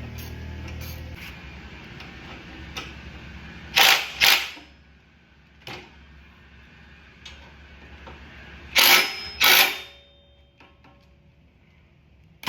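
A power tool tightening bolts on a motorcycle saddlebag rack. A steady motor whir with light clicking fades out about a second in, followed by two pairs of short loud bursts about five seconds apart as the bolts are run down.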